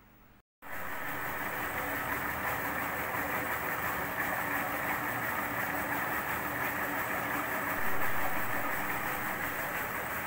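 Horizontal milling machine running, its spindle turning the long arbor: a steady mechanical whir with a low hum, starting abruptly about half a second in and growing slightly louder near the end.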